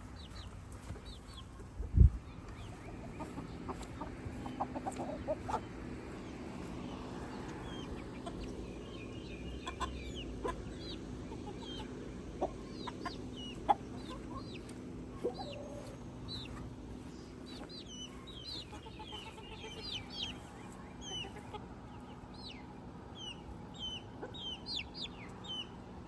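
Backyard chickens clucking and giving many short, high calls while they feed on treats, with one sharp low thump about two seconds in.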